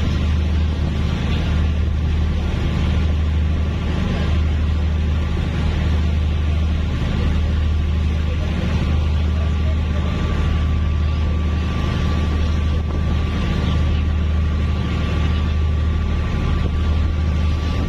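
Large cargo ship's engines running with a steady, deep, unbroken drone, with a faint steady high whine above it and a noisy hiss of wind and water.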